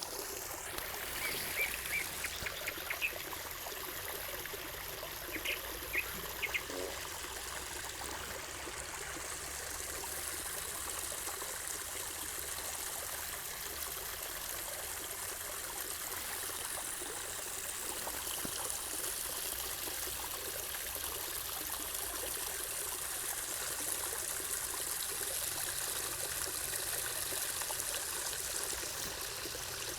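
Water trickling and splashing steadily, with a few short high chirps in the first six seconds.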